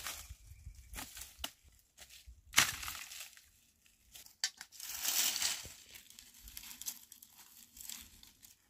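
Dry branches and twigs crackling and snapping as they are handled and pulled, with one sharp snap about two and a half seconds in and a longer rustling stretch about five seconds in.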